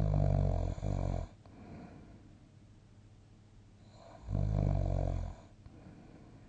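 A sleeping person snoring: a loud, low snore at the start, broken briefly after about three quarters of a second, then quiet breathing, and a second loud snore about four seconds in.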